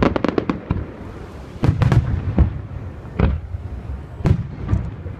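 Fireworks display: aerial shells bursting with sharp bangs and deep booms, a rapid crackling cluster of reports at the start, then single or paired bursts about every second.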